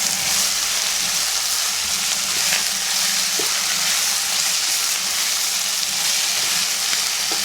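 Beef fry (spiced beef with onion, tomato and curry leaves) sizzling steadily in oil in a pan as it cooks down, with a couple of light clicks about two and a half and three and a half seconds in.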